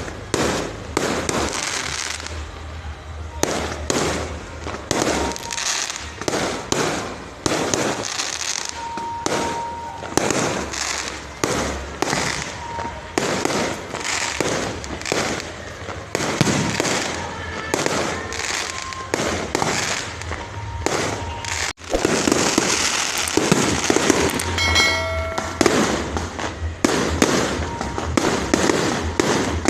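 Fireworks display: a dense, continuous barrage of firework bangs and bursts, several a second, with a short pitched tone near the end.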